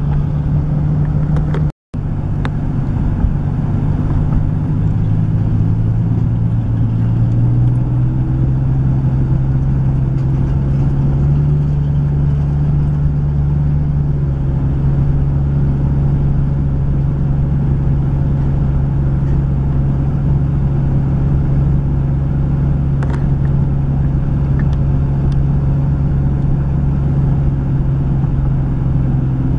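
Steady road noise and engine drone inside a moving car's cabin, a constant low hum over a rumble, with a split-second cut-out about two seconds in.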